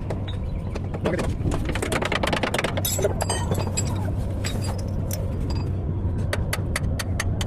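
Repeated sharp metallic clinks and taps over a steady low engine hum.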